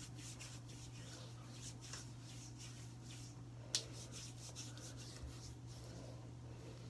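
Hands rubbing cream into bare arms: faint, repeated swishing strokes of skin on skin, with one sharper click about four seconds in. A steady low hum runs underneath.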